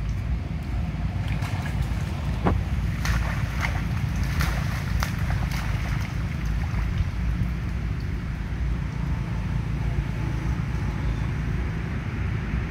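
Steady low rumble of wind buffeting the microphone, with scattered light splashes and clicks through the first half as macaques wade through shallow muddy water.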